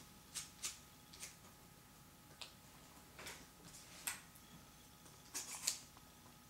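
UTG bipod's adjustable spring legs being set: scattered light clicks and taps of the metal parts, with a quick cluster of clicks near the end.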